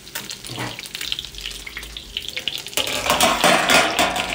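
Salmon fillet frying skin-side down in hot butter and olive oil, sizzling and crackling, growing louder and denser about three seconds in. The grease is getting a little too hot.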